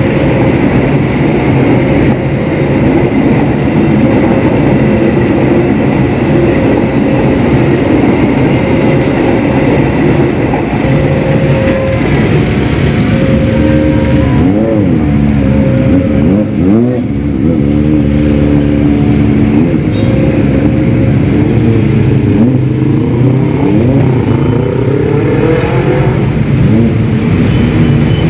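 Passenger train carriages rumbling past a level crossing while the automatic crossing alarm sounds a repeating tone. About halfway through, the train has cleared and a crowd of motorbike engines revs up and pulls away across the tracks, their pitches rising and falling over one another.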